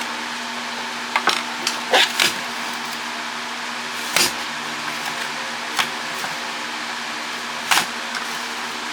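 Plastic housing of a WiFi router being pried and worked apart by hand: a series of sharp clicks and snaps, a cluster in the first couple of seconds and then single ones every second or two. A steady background hum runs underneath.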